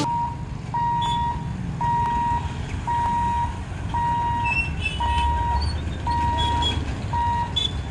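Level crossing warning buzzer beeping steadily at about one beep a second while the boom barriers lift. Motorcycle engines and traffic run underneath.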